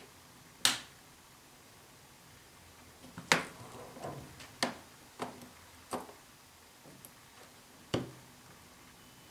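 Sharp clicks and taps from a small circuit board and hand tools being handled on the bench, about seven in all, the loudest near the start and about three seconds in.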